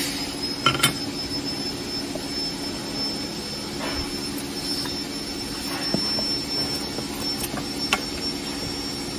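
Steady mechanical hum with a thin high whine, the drone of machinery in a workshop. Over it come a few light knocks and cardboard rustles as a metal bracket and a small box are set into a cardboard packing box, once near the start and again near the end.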